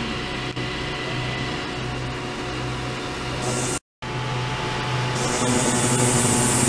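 Ultrasonic cleaning tank running under varying oscillator output control: a low hum that swells and fades about once a second, with a high hiss that comes and goes. The sound cuts out for a moment just before the middle.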